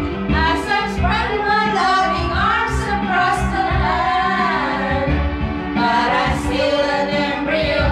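Several women singing together, one into a handheld microphone, over backing music.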